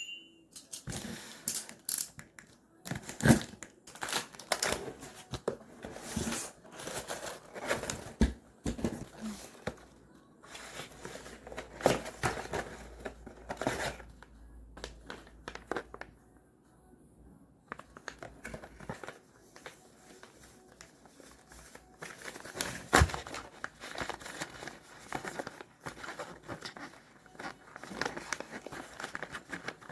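Packaging being crinkled, rustled and torn open by hand, in a long string of short scratchy noises with a brief pause about halfway through.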